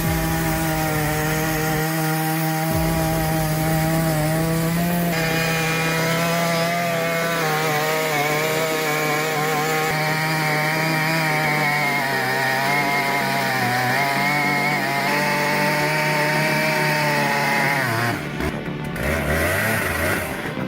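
Stihl MS 881 two-stroke chainsaw running at full throttle while cutting through a large log, its pitch wavering up and down as the chain bites. The sound changes abruptly near the end.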